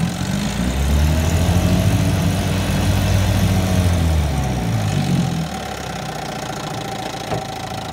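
1961 Evinrude Fisherman 5.5 hp two-stroke outboard motor running under way. Its engine speed rises over the first couple of seconds, holds, then drops back around five seconds in, and it runs slower and quieter after that. A single short click comes near the end.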